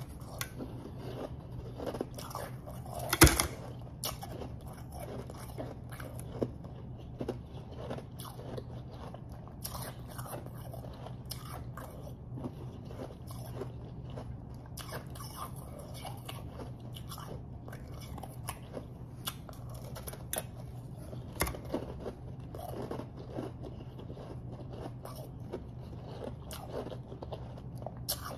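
Biting and chewing chunks of refrozen powdery snow ice, picked up on a microphone held at the mouth: a run of crisp crunches and crackles, with the loudest bite about three seconds in. A steady low hum runs underneath.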